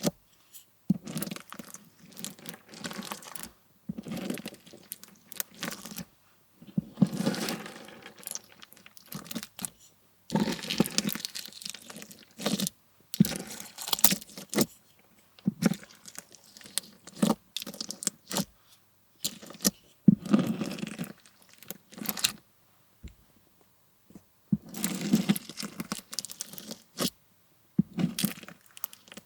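Slushie bead slime being squeezed and pressed by hand, the plastic pellets giving bursts of crunchy crackling and clicking that come in handfuls of a second or two with short silent gaps between.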